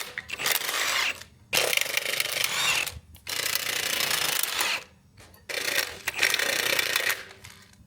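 Hand tool working on metal truck parts in four rasping, ratcheting bursts, each about a second long, with short pauses between.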